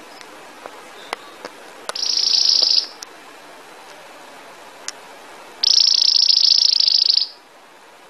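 Belgian canary singing two very fast, high, bell-like trills, the 'campainha' (bell) tour. The first trill comes about two seconds in and lasts under a second. The second starts past the middle and runs about a second and a half.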